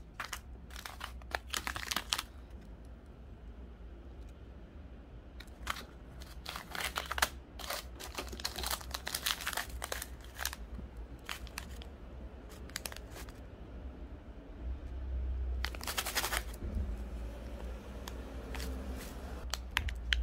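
Thin plastic zip-lock bags crinkling as they are handled and shuffled, in irregular bursts with short pauses between.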